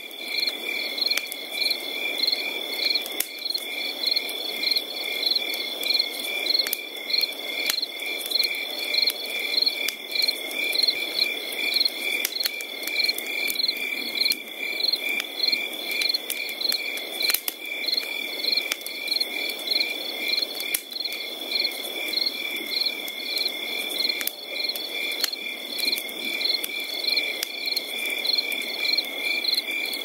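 Insects chirping, cricket-like: a steady high trill with chirps repeating in a regular rhythm, over an even lower hiss.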